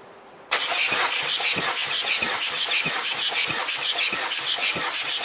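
Starter motor cranking a 1.9 TDI (AVB) four-cylinder turbodiesel with a compression gauge fitted to cylinder one. It cuts in sharply about half a second in and keeps cranking, with rhythmic compression pulses about three times a second.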